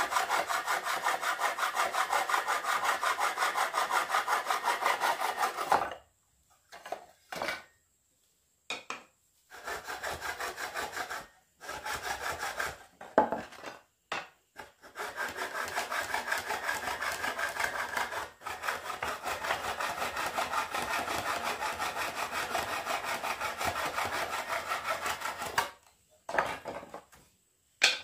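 Hand saw cutting jackfruit wood in quick, even strokes, about four a second. The sawing stops about six seconds in, leaving a few scattered knocks, then starts again in short spurts and runs steadily from about fifteen seconds until shortly before the end.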